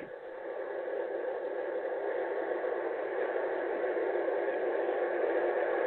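Background recording of ocean waves: a steady rush of surf that slowly swells louder.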